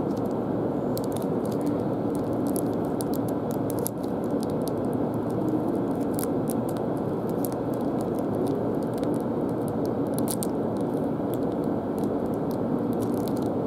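Crinkling and crackling of a chocolate bar's wrapper being pulled and worked open by hand, many small sharp crackles scattered through, over a steady background noise.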